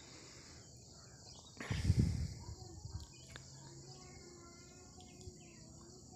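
Steady high-pitched chirring of insects, with a brief loud low rumble about two seconds in.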